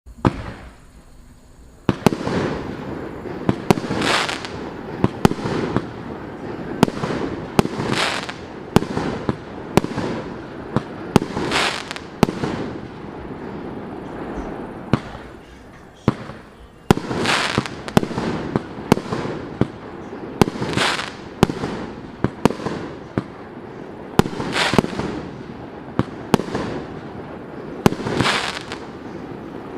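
A 100-shot, 1.2-inch consumer fireworks cake firing shot after shot: sharp launch reports in quick succession, each followed by a hissing burst overhead. It starts about two seconds in and pauses briefly about halfway.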